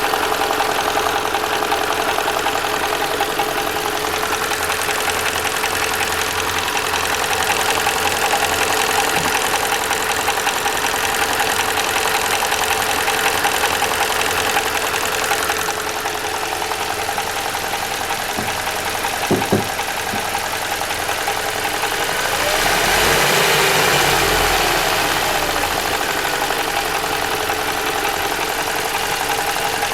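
Toyota Valvematic petrol engine idling with a knock, which the owner takes for a fault in the Valvematic. The engine swells briefly about two-thirds of the way through, rising and falling in pitch.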